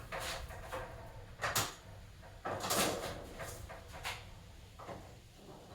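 Rummaging through drawers and a toolbox: a drawer sliding and parts and tools clattering, in a handful of separate knocks and scrapes, the loudest about a second and a half in and again near three seconds.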